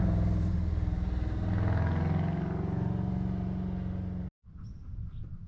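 A motor vehicle's engine running, its pitch rising slightly and then easing off as it slowly fades; the sound cuts off abruptly about four seconds in, leaving only faint background noise.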